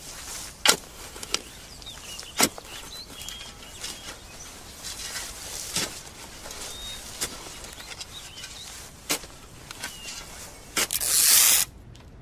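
Outdoor bush ambience with faint bird chirps, broken by scattered sharp knocks or snaps at irregular intervals, and a brief loud hiss near the end.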